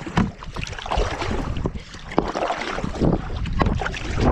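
Canoe paddling: paddles dipping and splashing in the water in irregular strokes, with wind buffeting the microphone.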